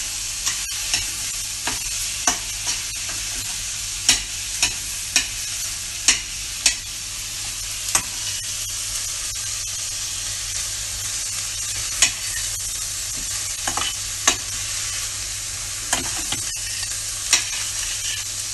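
Mixed vegetables sautéing in olive oil in a stainless-steel pan: a steady sizzle, with irregular clinks and scrapes as the stirring utensil strikes the pan.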